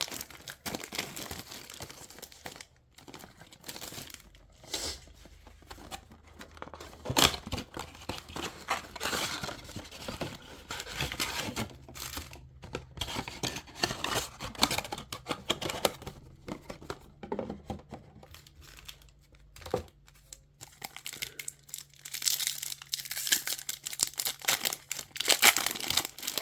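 Cardboard blaster box of trading cards being torn open and the card packs' plastic wrappers ripped and crinkled, in irregular bursts of tearing and rustling.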